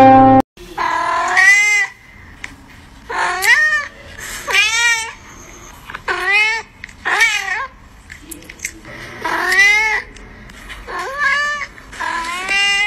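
A cat meowing over and over: about eight drawn-out meows, each rising and then falling in pitch, one every second or two. A plucked string note is cut off in the first half second.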